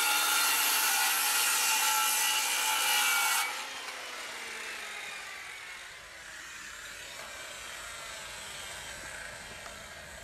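Circular saw cutting into a pine rafter board at the bird's-mouth notch for about three and a half seconds. The trigger is then released and the blade winds down with a falling whine.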